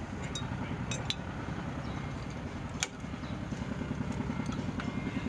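A steady, finely pulsing engine hum runs throughout, like an engine idling. Over it come a few sharp metallic clicks as the leading shoe of a rear drum brake is lifted off its backing plate; the sharpest is about three seconds in.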